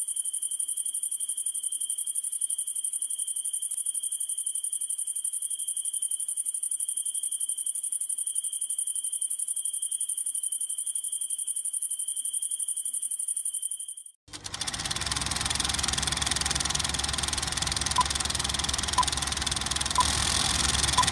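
Crickets trilling steadily, with a rapid pulsing chirr. About 14 seconds in this cuts off abruptly to an old film projector's rattling clatter and hum. Near the end a short countdown beep sounds once a second, as on an old film countdown leader.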